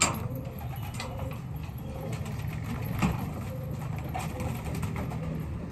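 Domestic pigeons cooing around a rooftop pigeon loft. A sharp knock comes at the start and another about three seconds in.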